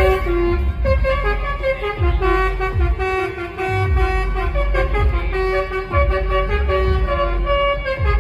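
Truck's basuri telolet horn set, a bank of air horns playing a tune note by note, with a low thump coming back about every second underneath.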